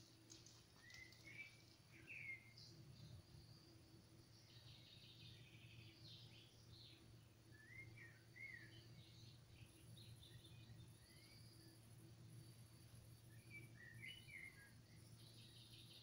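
Faint bird chirps, a few short calls every several seconds, over a low steady hum.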